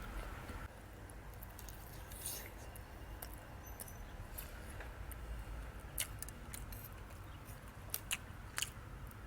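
Close-up eating sounds: a person chewing, with a few sharp mouth clicks, the clearest about six and eight seconds in.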